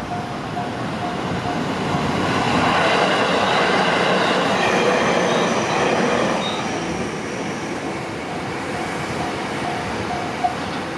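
JR Gotemba Line electric train passing over a level crossing, its running noise on the rails swelling for a few seconds and then easing off, with a faint high wheel squeal. The crossing's warning bell dings about two to three times a second, buried while the train is loudest and clear again near the end. A single sharp click comes near the end.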